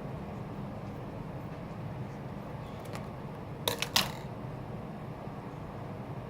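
Steady low hum of a fan or air conditioner, with two sharp clicks a little past the middle.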